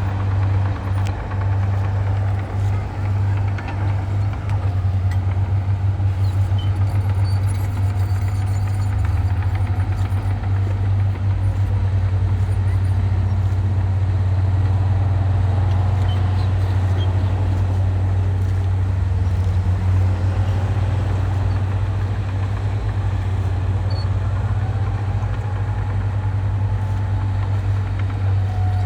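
Diesel engine of heavy earthmoving machinery running steadily with a deep, even drone, with faint whines rising and falling above it.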